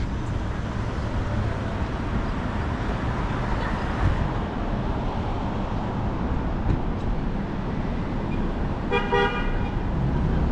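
Steady city traffic noise from cars driving along a multi-lane avenue. About nine seconds in comes a short car horn toot.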